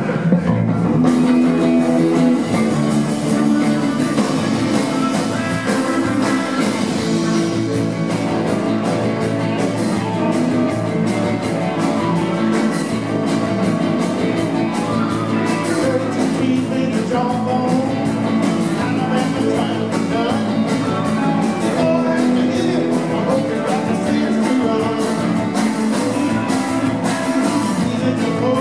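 A live rock band playing a song: electric guitars, drums and electric keyboard, with a man singing lead.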